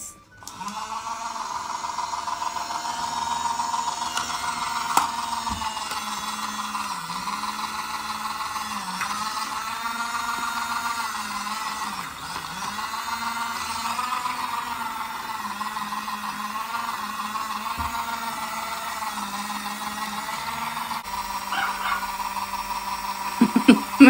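Daiso miniature washing machine running a wash with a mask and water inside. Its small motor whirs steadily, starting about half a second in, with a whine that wavers slightly in pitch.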